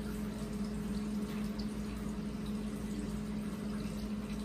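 A steady low hum with a faint even hiss underneath, unchanging throughout.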